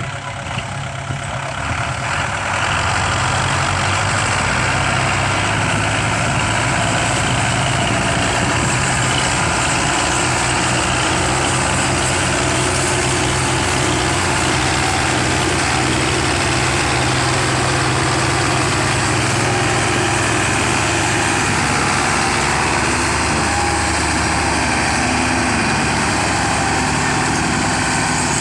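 Belarus 510 tractor's diesel engine running steadily, growing louder over the first two seconds and then holding an even drone.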